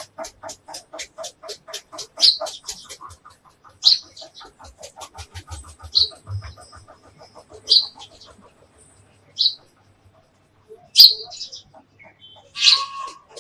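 Bird calls outdoors: a short, sharp call repeated about every one and a half to two seconds, over a fast ticking of about five a second through the first three seconds.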